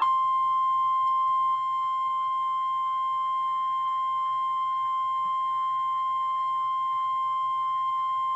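NOAA Weather Radio warning alarm tone: a single steady high tone of about 1050 Hz, held without a break, dipping slightly in level about a second and a half in. It signals that a warning, here an ice storm warning, is about to be broadcast.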